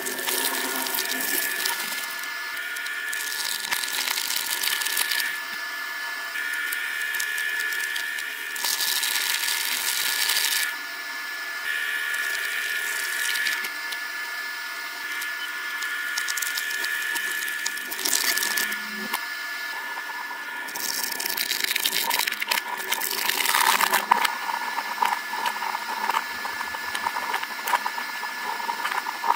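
Twin-shaft shredder running with a steady motor whine while its cutter discs grind through soft items in several spells of a few seconds each. Near the end it crunches plastic food containers, with a run of sharp cracks and snaps.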